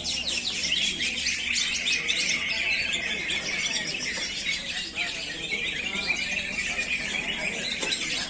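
Caged songbirds singing at once in a dense, unbroken stream of fast chirps, trills and whistles, among them a cucak ijo (green leafbird) in full song.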